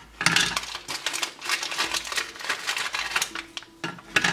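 Foil ration packet crinkling and dry ration biscuits clicking as they are pulled out and set down on a stainless steel mess tray: many short sharp clicks and rustles.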